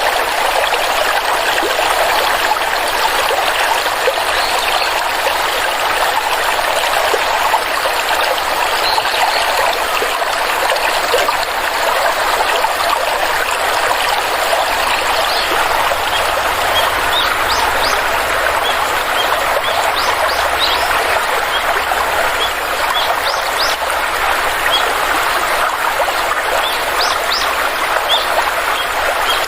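Steady rush of a flowing stream. Short, high bird chirps join in about halfway through and come more often toward the end.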